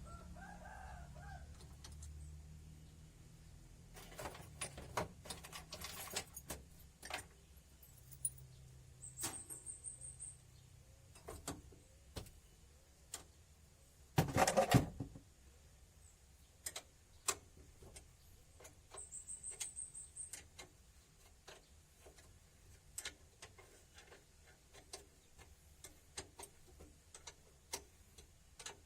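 Scattered light clicks and clinks of hand tools and metal parts being handled during work on a steering gearbox, irregular throughout, with one louder sound lasting about a second near the middle.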